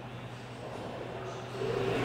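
Faint hangar background noise with a steady low hum, growing a little louder near the end.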